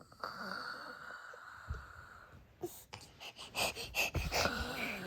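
A woman snoring: one long rasping snore of about two seconds, then a shorter one. From about three seconds in, rustling and a quick run of soft knocks follow.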